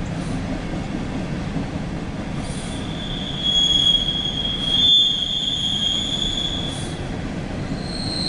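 Empty coal hopper cars of a CSX freight train rolling past: a steady rumble of steel wheels on rail. A high wheel squeal sets in about three seconds in and dies away near seven seconds, and another squeal starts near the end.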